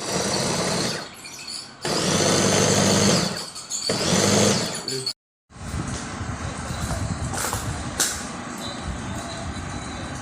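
Electric food chopper's motor whirring in several short pulses, its whine rising and falling with each start and stop, then a longer, rougher run.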